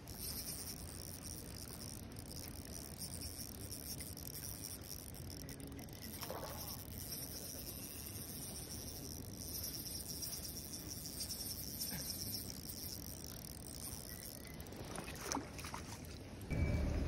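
Spinning reel being cranked steadily with a fine high-pitched whir while a hooked trout is reeled in, then a few sharp splashes near the end as the trout thrashes in the landing net.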